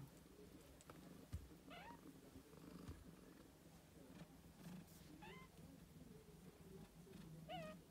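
Siamese queen cat purring softly and steadily while her kittens nurse. Three faint short high mews break in, and there are a couple of soft knocks.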